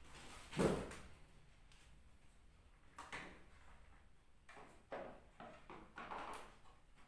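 Hard plastic clunks and rustling from handling a Krisbow canister vacuum cleaner while its hinged lid is opened and a paper dust bag with a cardboard collar is fitted. The loudest knock comes about half a second in, with smaller knocks around three, five and six seconds.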